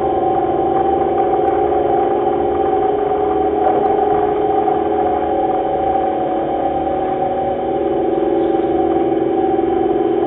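Electronic drone music: layered sustained tones held steady over a low pulsing rumble, the middle tones shifting a little near the end.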